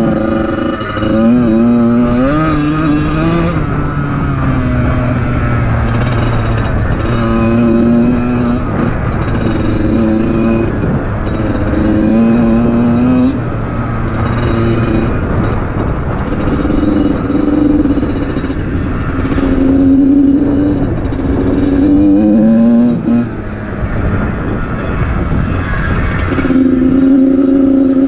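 Yamaha YZ85 two-stroke single-cylinder motocross engine being ridden hard, its pitch repeatedly climbing under throttle and dropping back through the gears, with a brief dip about three-quarters of the way through.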